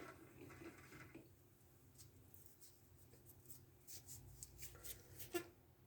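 Near silence: faint low hum with a few light clicks and rustles of handling, the sharpest click near the end.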